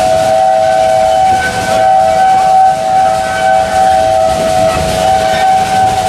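Steel wheels of a steam train's passenger cars squealing against the rails on a curve: a steady high-pitched squeal of two close tones, one fading in and out while the other holds, over the rumble of the cars.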